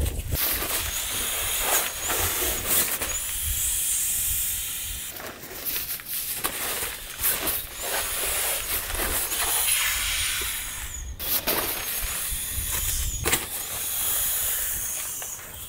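Inflatable sleeping pad being filled from a nylon pump sack. There are repeated rushes of air, each a second or two long, every couple of seconds, with crinkling of the sack and pad fabric as the bag is pressed.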